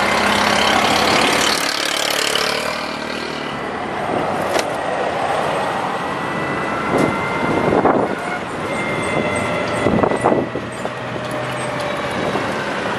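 Ride in an open-sided motorized tricycle through city traffic: vehicle and road noise with a steady high whine, and a few brief swells as other vehicles pass close by.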